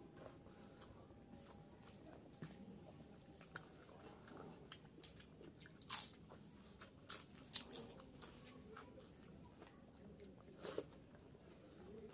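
Close-up eating sounds: chewing with sharp, crisp crunches of papad (fried lentil wafer). The loudest crunch comes about halfway through, with a quick run of crunches just after and one more near the end.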